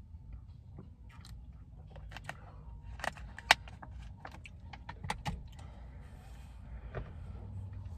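Plastic water bottle handled and crinkled: a scatter of short crackles and clicks, the loudest a single sharp click about three and a half seconds in, over a low steady rumble.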